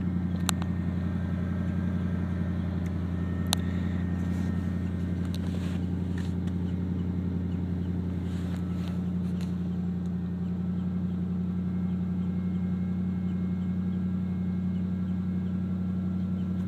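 Chevrolet Silverado pickup's engine idling steadily while it warms up after a cold start, heard from inside the cab. Two sharp clicks come within the first few seconds.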